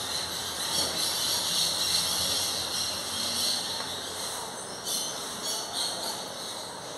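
Steady high-pitched insect chorus in the trees, holding several steady high tones throughout, with a few short sharper sounds around five to six seconds in.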